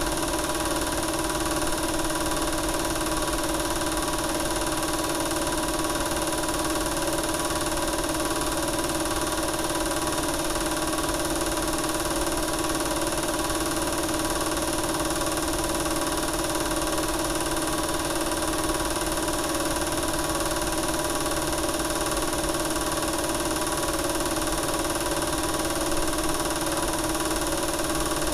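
Film projector running: a steady mechanical whir with a constant hum.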